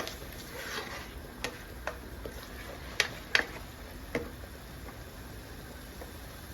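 A cooking utensil clicking against the pot while string beans and potatoes are stirred as they fry in oil: a handful of sharp clicks, the loudest two in quick succession about three seconds in, over a low frying sizzle.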